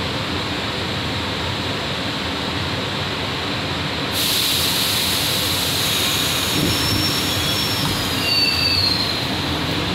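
Interior sound of an R62A subway car: a steady rumble and hiss. About four seconds in the hiss steps up suddenly, and faint high wheel squeals come in the second half.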